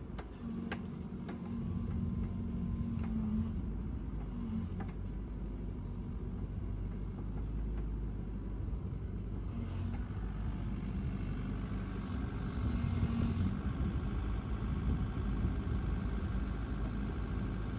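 The 42-horsepower diesel engine of a 2008 Bobcat 331 mini excavator runs with a steady low rumble while the machine works its boom and swings its house. A hum from the working hydraulics comes and goes, with a few light clicks in the first few seconds. A higher whine joins about ten seconds in, and the sound gets louder for a few seconds after that.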